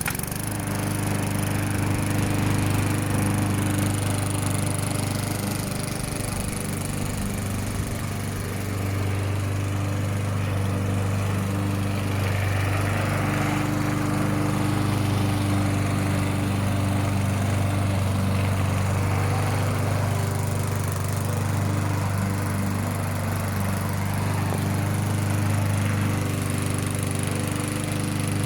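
Briggs & Stratton 4 hp Quattro single-cylinder four-stroke engine on a walk-behind rotary lawn mower, running steadily at mowing speed as the mower cuts grass, with the level dipping slightly now and then.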